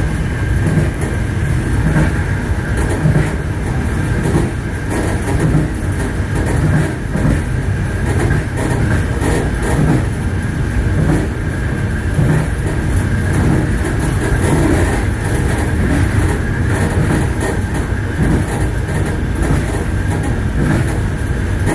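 Passenger train's wheels clattering over rail joints as the carriage runs along, over a steady low rumble.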